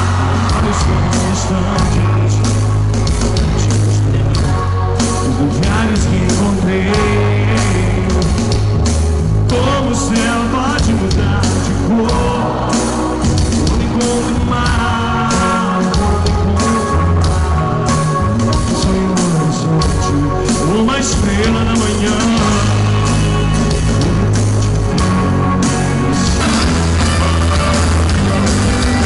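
Live band music played loud through a concert PA: a steady rock drum beat, heavy bass and a sung lead vocal.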